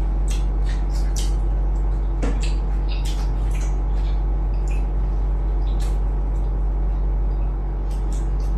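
Steady low hum, with scattered short clicks and smacks from people eating, chewing and handling plates.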